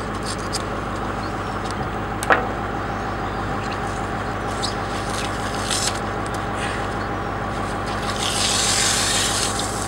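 Steady hum of an idling engine, with small scraping and rubbing sounds of a knife and gloved hands working the skin off a dogfish on a wooden board. A short sharp squeak comes about two seconds in, and a rougher rasping hiss rises near the end as the skin is worked loose.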